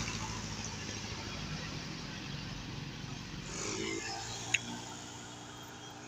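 A medium-sized bus's engine running low and fading as the bus drives away round a bend, with a brief sharp click about four and a half seconds in.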